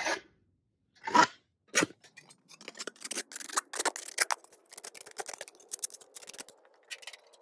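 Hand file rasping along the cut edge of a sheet-metal patch panel, straightening it: two strong strokes, then a run of quicker, shorter strokes several times a second.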